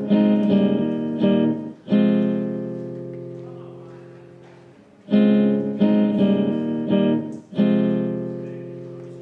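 Nylon-string classical guitar strummed: a quick run of four chords, then one chord left to ring and slowly fade, and the same pattern again from about five seconds in.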